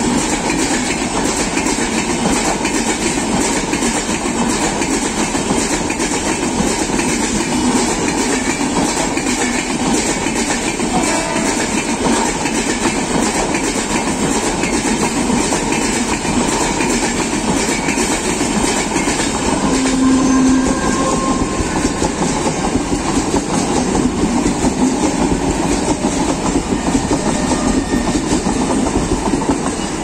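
Indian Railways express passenger coaches passing close by at speed: a loud, steady rumble with the wheels clattering over the rail joints.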